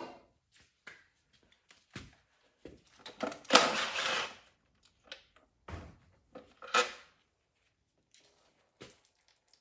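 Hand tools and metal transmission parts being handled: scattered clicks and knocks, with a louder clatter about three and a half seconds in and a sharp knock near seven seconds.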